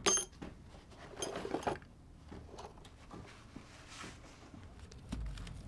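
A few light knocks and clatters: a sharp one at the very start, then a short cluster about a second in, with faint scattered clicks after.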